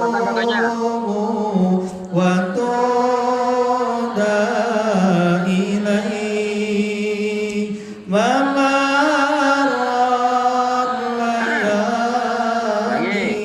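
A man chanting a ruqyah recitation in long, drawn-out held notes, with a short break about eight seconds in.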